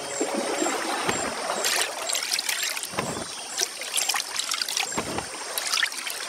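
Water trickling and splashing, with a few sharper splashes scattered through.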